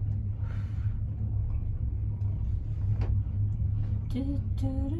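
Steady low rumble inside a moving gondola cabin travelling along its cable, with a single faint click about three seconds in.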